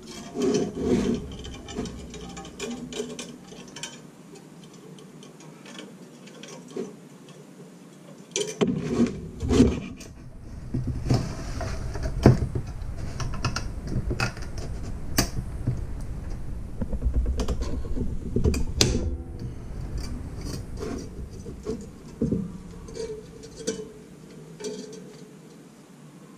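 Metal cube-cutter grid of an icemaker handled and worked on a wooden workbench while nichrome wire is wrapped around it: irregular clicks, knocks and scraping, sparse for a few seconds and then busier from about nine seconds in.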